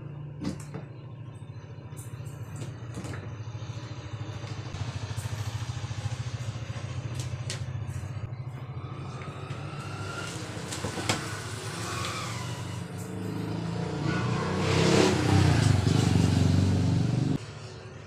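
A motor engine running with a low, pulsing rumble that grows louder near the end and then cuts off suddenly, with a few sharp clicks from handling the TV box and its cables.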